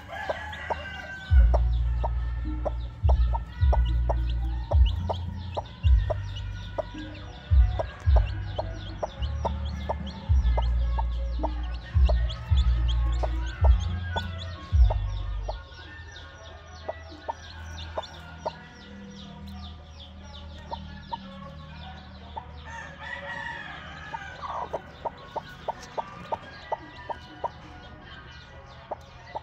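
Chicks peeping in short high cheeps while a broody hen clucks over them. A bass-heavy music track plays over them for roughly the first half and stops suddenly about halfway through.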